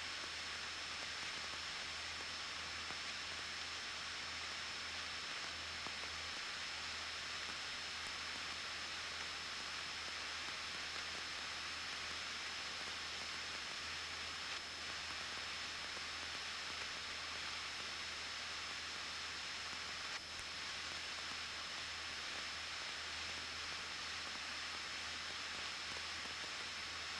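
Steady hiss of an aircraft headset intercom feed with a faint low hum underneath and a thin high-pitched whine, in the cabin of a Cessna 172N in flight.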